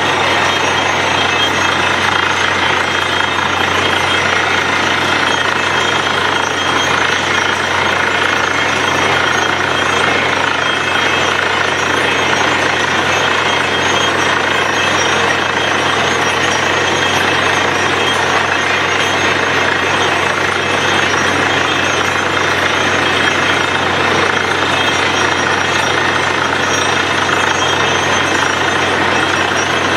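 Borewell drilling machine running steadily: a fast, continuous hammering rattle over the steady hum of its motor.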